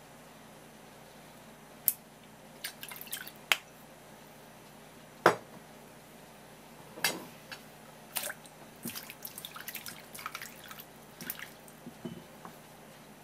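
Small splashes and drips as cut pieces of udo are dropped into water in a stainless steel bowl, many in quick succession in the second half. A few sharper knocks and clinks come earlier, the loudest about five seconds in.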